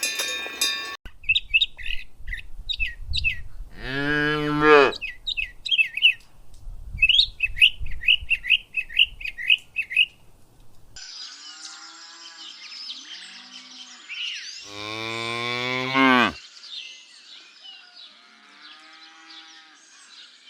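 Cows mooing, two long moos about ten seconds apart, the second one longer. Small birds chirp in quick repeated notes through the first half, and other birds call after that, over a low rumble that stops partway through.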